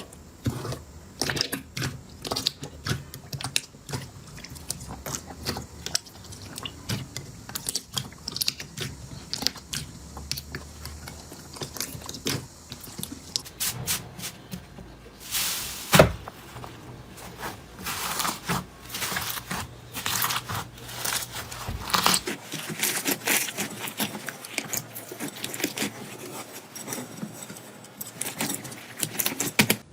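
Slime being squeezed and worked by hand: a dense run of small sticky clicks, pops and crackles, with one sharper, louder click about halfway through.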